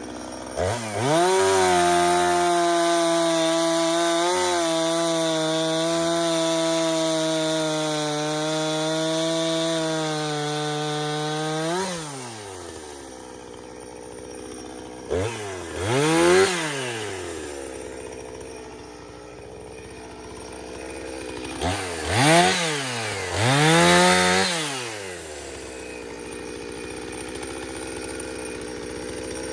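Two-stroke chainsaw held at full throttle for about ten seconds while cutting, then dropping back to idle, with three short revs later on.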